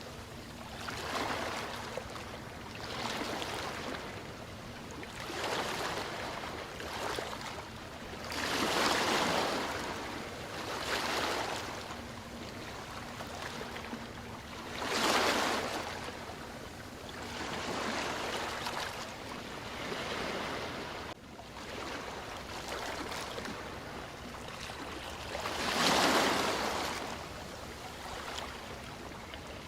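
Ocean waves washing in and drawing back, swelling into a louder surge every few seconds, with the biggest breakers about a third of the way in, near the middle, and close to the end.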